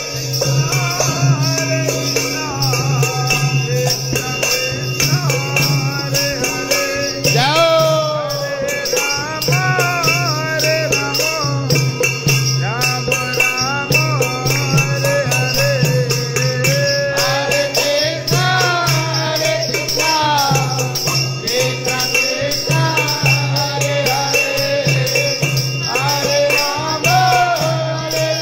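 Hindu devotional song: a voice sings a wavering, sliding melody over a steady low drone, with continuous jingling percussion keeping a fast beat.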